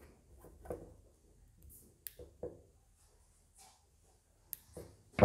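Small plastic clicks and handling noises as a solderless clip-on LED strip connector is pressed shut by hand and squeezed with the jaws of wire strippers, ending in a sharper click.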